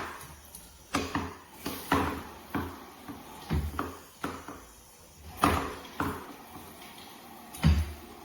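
Irregular clacks and knocks, about ten in all, from shower faucet fittings and the handheld shower head being handled and set against hard surfaces; the loudest come about five and a half seconds in and near the end.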